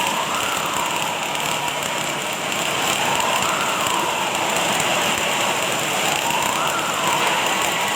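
Automatic welding arc crackling and hissing steadily, with a faint tone that rises and falls about every three seconds.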